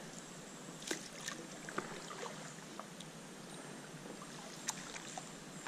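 Kayak paddle strokes in calm water: faint dripping and small splashes from the blades, with a few soft clicks scattered through.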